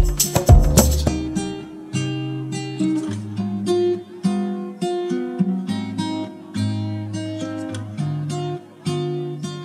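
Background music: a loud beat that stops about a second in, then acoustic guitar playing a run of single notes and chords.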